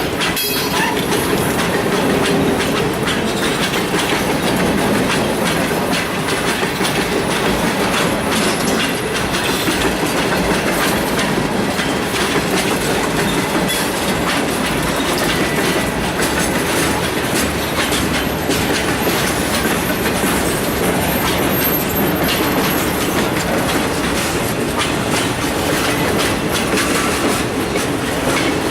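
A freight train's cars rolling steadily past, a continuous rumble with the wheels clacking over the rail joints.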